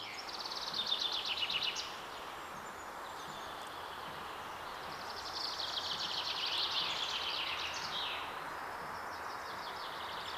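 Songbird singing fast trilled phrases, loudest about a second in and again from about five to eight seconds in, over a steady background hiss.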